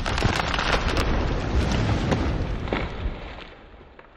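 Sound effects of an animated logo intro: a low rumble with dense crackling and many small sharp clicks as the logo breaks into fragments, fading away over the last second or so.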